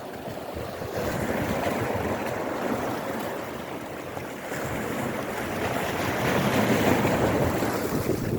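Sea surf washing in and splashing against shoreline rocks, swelling twice: about a second in and again from about five seconds.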